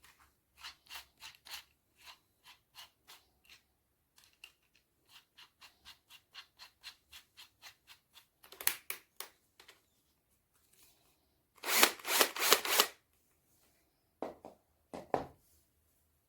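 A run of small, light clicks, about three or four a second, then louder clattering: one short burst partway through, a dense rattle lasting about a second and a half, and two short clatters near the end.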